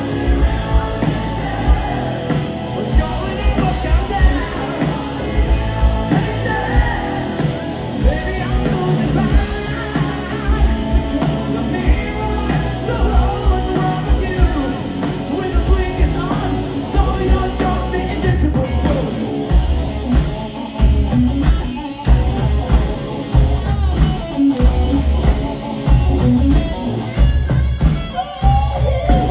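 Glam metal band playing live: a male singer over electric guitars, bass and drums with a steady beat.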